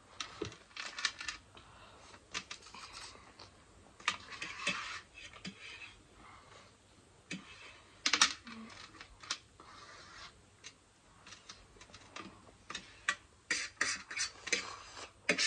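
Forks scraping and clicking against a metal baking tray as noodles are scooped up, mixed with close-up chewing and mouth sounds. The sharpest click comes about eight seconds in.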